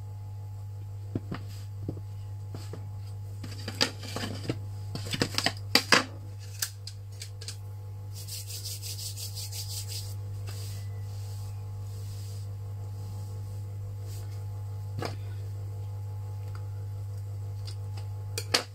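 A steady low-pitched hum with a few light clicks and taps in the first several seconds, a brief rustle about eight seconds in, and one more tap later.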